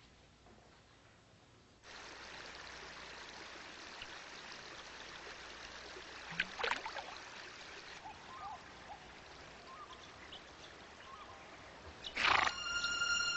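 Outdoor nature ambience from a film soundtrack: after about two seconds of near quiet, a steady rushing wash like a running stream comes in, with a few short chirps scattered through it. Near the end there is a sudden loud hit, and music with held tones begins.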